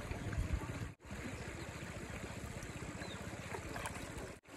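Shallow river running over rocks: a steady wash of flowing water.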